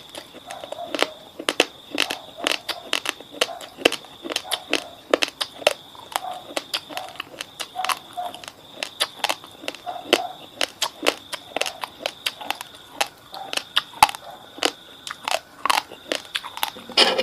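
Cold, hard uncooked basmati rice grains being crunched between the teeth: rapid, irregular sharp cracks, several a second.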